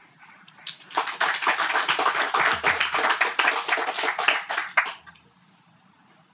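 Audience applauding, starting about a second in and stopping about five seconds in.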